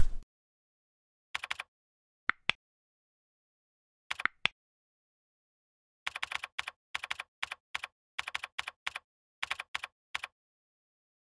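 Computer keyboard typing: short runs of keystrokes, then quick groups of about four keys at a time as a card number is entered. A single sharp thump at the very start is louder than the typing.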